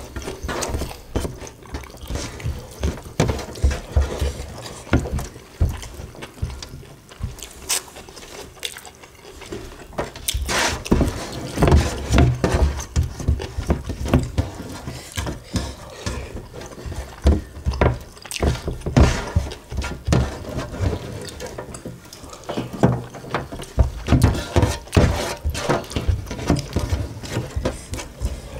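Close-up eating sounds of two people eating rice with sambal by hand: wet chewing and mouth sounds, and fingers gathering sticky rice across a metal tray, with many small irregular clicks.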